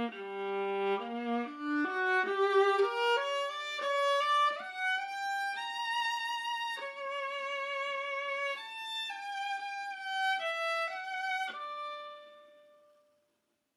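Solo viola played with the bow: a slow melody climbing note by note from the low register into higher notes, with long held notes sung out with vibrato. The last note dies away about twelve seconds in.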